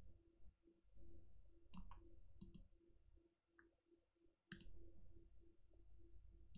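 Faint computer mouse clicks, several scattered sharp clicks, over a low background hum.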